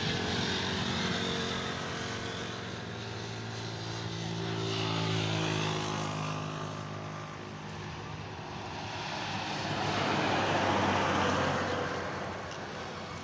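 Traffic passing on a road. A vehicle's engine hum builds to a peak about halfway through and fades away, then a second swell of engine and road noise rises and falls near the end.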